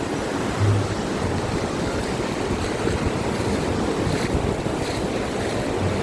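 Ocean surf washing steadily onto a beach, with low wind rumble on the microphone, strongest about a second in.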